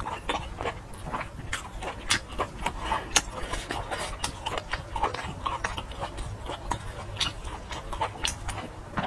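Eating sounds of someone biting into and chewing a large red sausage: an irregular run of sharp mouth clicks and smacks.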